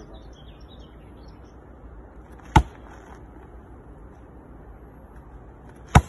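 Two sharp slaps of a low kick striking a large padded kick shield (makiwara) held by a partner. The first comes about two and a half seconds in, the second right at the end.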